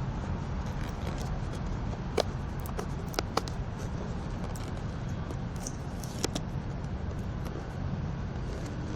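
Steady low rumble of a car, heard from inside the cabin, with a few sharp clicks about two, three and six seconds in.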